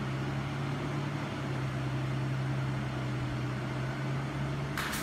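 Holztek PRO-R4F four-head CNC nesting router and its extraction equipment running with a steady, even hum. A short burst of hiss comes just before the end.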